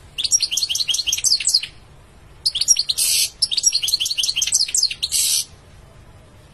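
European goldfinch singing: two fast twittering phrases of high, sliding notes with a harsh buzzy note in the second, the song stopping about five and a half seconds in.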